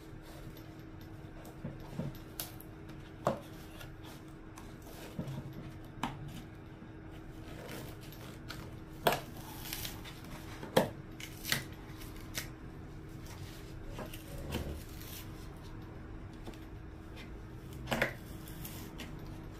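Irregular clicks, snips and knocks of hand tools cutting into and handling the parts of an opened speaker, a dozen or so sharp strokes with the loudest about nine, eleven and eighteen seconds in, over a faint steady hum.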